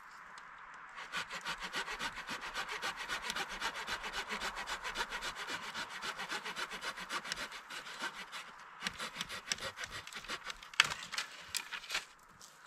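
Hand saw cutting through a fallen branch in quick, even strokes, with a short pause partway and one sharp crack near the end.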